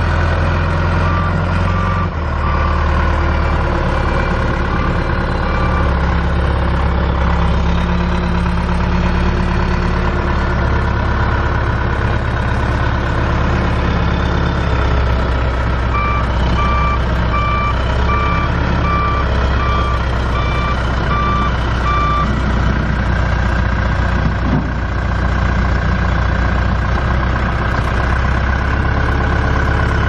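Backhoe's John Deere 4.5-litre four-cylinder turbo diesel running steadily, with its reverse alarm beeping: a few scattered beeps near the start, then a regular run of about nine beeps past the middle as the machine backs up.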